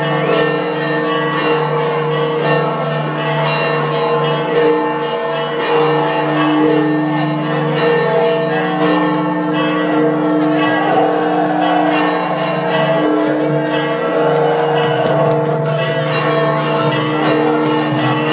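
Church bells ringing continuously in a dense peal, many tones overlapping with repeated strikes.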